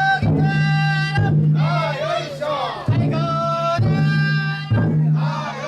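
Taiko drum on a festival drum float struck about once a second, with a group of voices chanting and calling out between the strokes.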